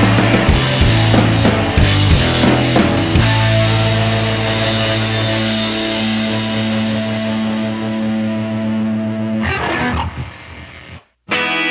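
Background rock music with guitar and drums. The drum hits stop about three seconds in, leaving held chords. Near the end the music fades, cuts out for a moment, and a new guitar piece begins.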